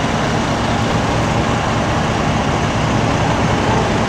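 Fire truck's engine running, a steady loud rumble with constant noise over it.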